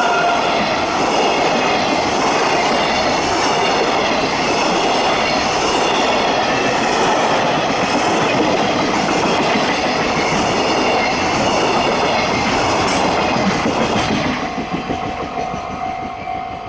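A freight train's wagons rolling past at speed, wheels clattering over the rails with faint squealing tones, steady and loud until about fourteen seconds in, when the end of the train passes and the noise fades away.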